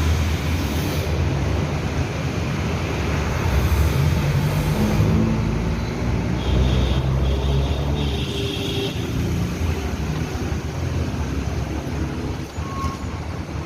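Motor vehicle engine running close by amid road traffic, its low hum shifting in pitch, with a brief high tone about two-thirds of the way through.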